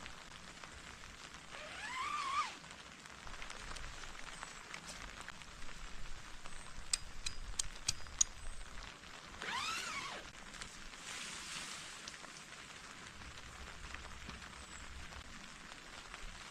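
Steady rain falling with an even hiss and patter. Two short pitched sounds arch up and then down, one about two seconds in and one near ten seconds; they are the loudest things heard. A few sharp ticks come in the middle.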